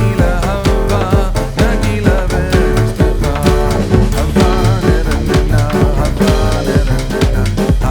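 Upbeat background music with a steady drum beat and a melody line.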